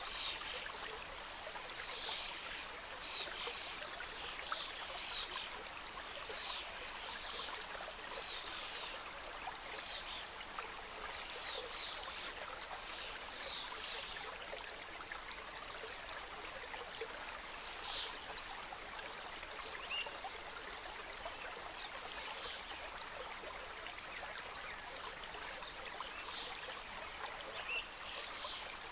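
Mountain stream flowing over rocks: a steady rushing and trickling of water, with many short bright splashes and gurgles on top, thickest in the first half.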